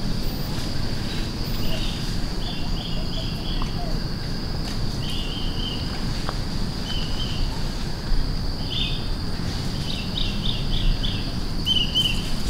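Tropical forest ambience: a steady high-pitched insect drone, with short chirps repeating singly and in quick little groups, more often in the second half, over a low rumbling background.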